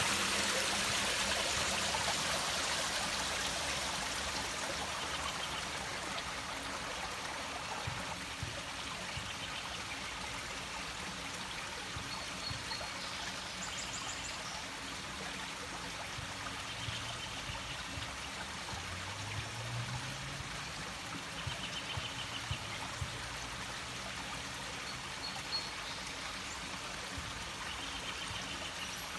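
Water running steadily in a small creek, loudest at the start where a pipe outlet spills into it as a little waterfall, then settling to a softer, even trickle.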